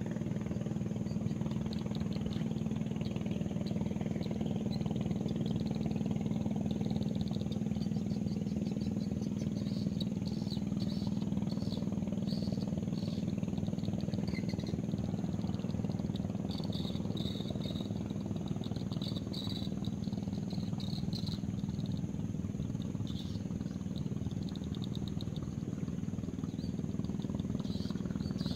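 Steady low engine drone with an even pitch. Short high chirping trills come and go from about ten seconds in.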